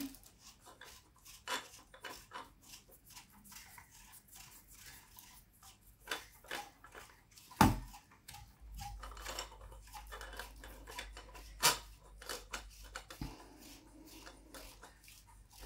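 Parts of a gooseneck phone holder being handled and fitted together: scattered small clicks, taps and rubbing, with two sharp knocks, one about halfway through and one near three quarters of the way.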